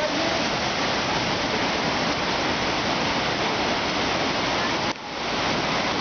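Rushing water of a swollen mountain stream below a waterfall in full spate: a steady, even rush that briefly drops away about five seconds in, then resumes.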